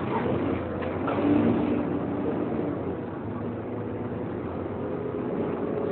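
Inside a Volvo B7TL double-decker bus on the move: a steady drone from the engine and cooling fan, carrying a few held tones. It swells briefly about a second in.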